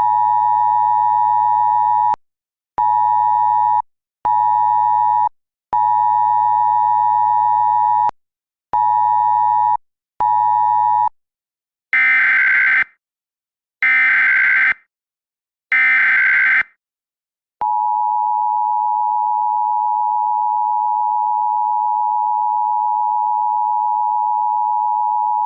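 Emergency Alert System signal. A steady tone near 1 kHz switches on and off six times. Then come three short bursts of screechy digital header data and a long, unbroken, single steady attention tone that announces the alert message.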